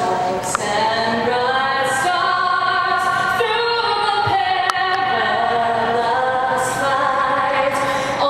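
A group of voices singing together in harmony without instruments, holding long notes. It starts suddenly out of silence.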